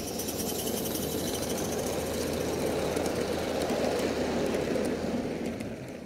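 A 16mm-scale live steam train running past on garden railway track: a steady rumble of small wheels on the rails that builds to about four seconds in, then fades as the coaches pass and the train draws away.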